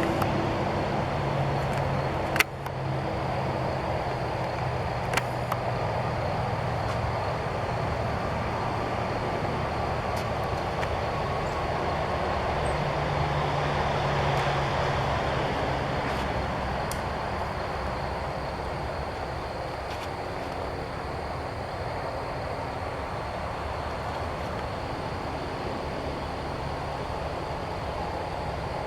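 Excalibur Matrix 405 recurve crossbow firing once about two seconds in, a single sharp crack, with a fainter click a few seconds later. A steady outdoor rumble with a low hum runs underneath.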